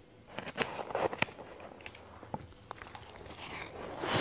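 Spoon scraping and clicking into a bowl of shaved ice, with crunchy crackles for about a second and then a few scattered ticks. Near the end comes the loudest sound, a sharp crunch of ice being bitten.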